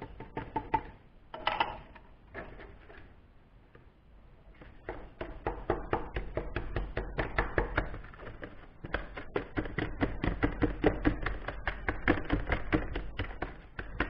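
A tool is chopped and scraped through sand wet with sodium silicate in a plastic tub, breaking the foundry core sand into lumps to mix in the binder. A few soft bumps come as the sand is tipped in, then from about five seconds in there are rapid, irregular knocks and scrapes against the tub.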